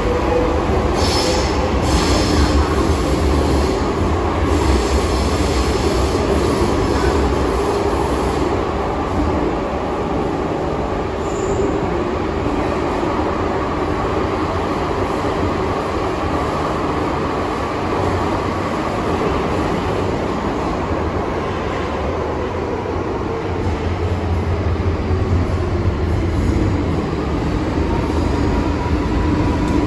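MTR M-Train electric multiple unit running in a tunnel, heard from inside the passenger cabin: a steady, loud rumble of wheels on rail with a faint hum whose pitch slides down about two-thirds of the way through.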